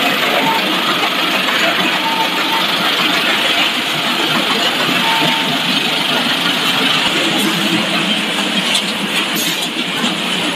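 Steady machinery noise of a fried snack-stick production line running, its conveyors and fryer going together, with a few light clicks near the end.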